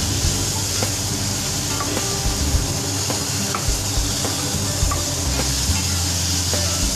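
A spatula stirring in a pan of simmering, boiled-soft green mango pieces, with a steady hiss from the pan and scattered light taps of the utensil.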